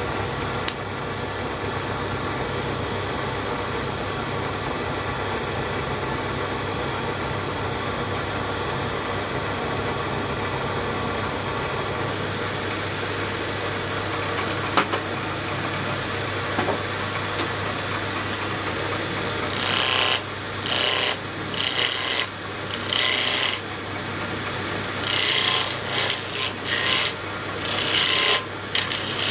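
Wood lathe motor humming steadily. In the last ten seconds a hand-held turning tool cuts the spinning pine wheel blank in about eight short, hissy scraping passes, each under a second.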